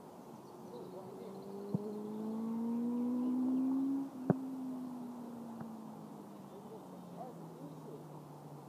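A motor's hum slowly rising in pitch, loudest about three to four seconds in, then slowly falling away. Two sharp knocks, the louder one about four seconds in.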